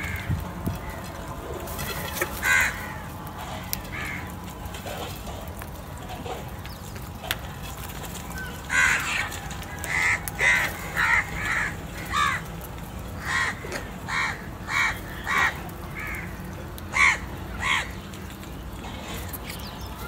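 House crows cawing: a couple of single caws in the first few seconds, then a run of about a dozen separate caws, spaced about half a second to a second apart, from about nine to eighteen seconds in.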